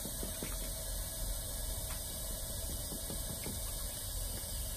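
Light, quick taps on the UV-cured pipe casting, several a second through the first three and a half seconds, showing that the liner has hardened. Under them a steady hum runs on from the packer equipment.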